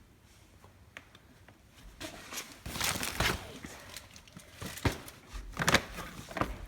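Irregular rustling and crinkling handling noises with a few sharper knocks, starting about two seconds in.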